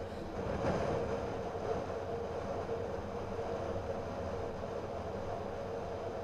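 Steady engine and tyre noise of a moving car, heard from inside the cabin. About a second in, a brief swell as an oncoming truck passes close by.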